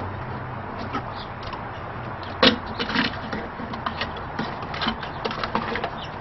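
Wires and Wago lever-nut connectors being pushed back into an electrical box: a run of scrapes and clicks, the loudest about two and a half seconds in, over a steady low hum.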